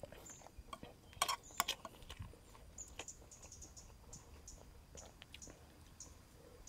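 A few sharp clicks of a metal spoon against the plate about a second and a half in, then faint, short high-pitched chirps repeating two or three times a second.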